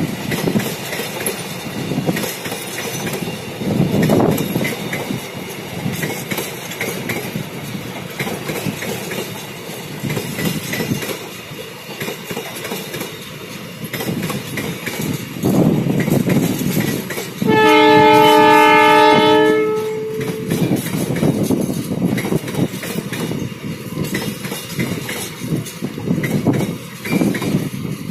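Empty container flat wagons of a long freight train rolling past at speed, their wheels clattering over the rail joints. A train horn sounding several tones at once blows for about two seconds just past halfway, and starts again at the very end.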